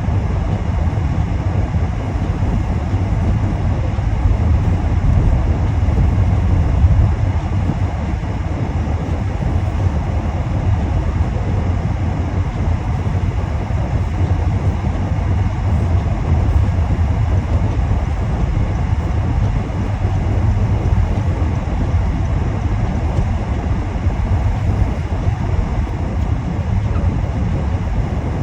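Car driving on a highway: a steady low rumble of road and engine noise that runs on without a break.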